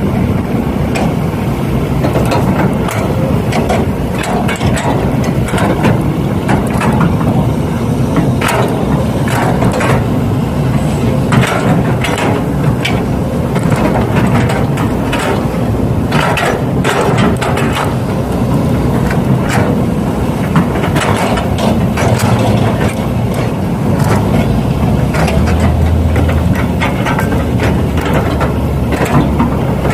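Radio-controlled model construction machines working: a steady engine-like drone with many scattered sharp clicks and ticks throughout.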